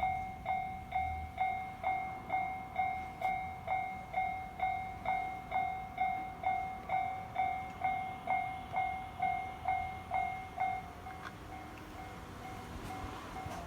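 Japanese railway level-crossing warning bell ringing, a repeated electronic ding a little over two strikes a second. It stops about eleven seconds in, leaving a steady low noise.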